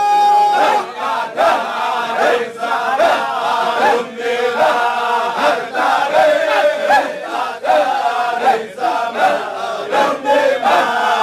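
A group of men chanting Shadhili dhikr together, many voices overlapping in a rhythmic chant with one steady note held underneath.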